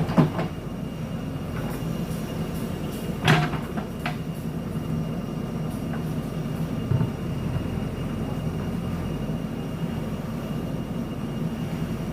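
JCB backhoe loader's diesel engine running steadily while digging, with sharp metallic clanks from the bucket and arm just after the start and again about three seconds in.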